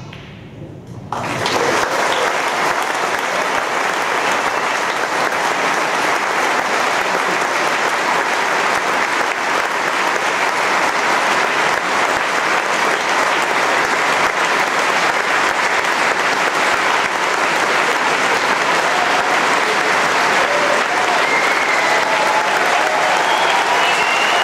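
Large audience applauding, breaking out suddenly about a second in and going on steadily, at the end of a snooker frame.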